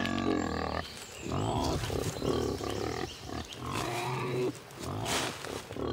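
Wild boars grunting, a series of rough calls with short pauses between them.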